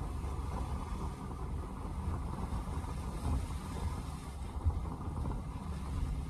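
Car in motion on snow-covered streets, heard from inside the cabin: a steady low rumble of tyre, road and engine noise.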